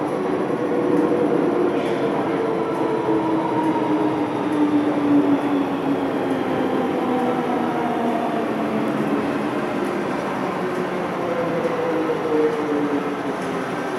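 MTR M-Train electric multiple unit running through an underground metro station without stopping. A steady rail running noise carries a motor whine that falls slowly in pitch over the first several seconds, and a second falling whine comes near the end.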